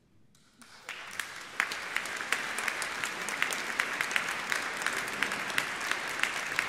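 Audience applause: a brief hush, then clapping breaks out about half a second in and swells within a second to steady, dense applause, echoing in a large stone cathedral.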